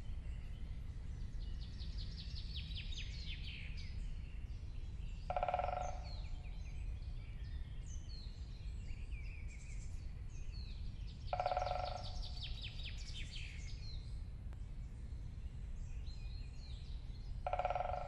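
Great spotted woodpecker drumming on wood: three rolls under a second long, about six seconds apart, the strokes so fast they can hardly be told apart. Songbirds sing in the background.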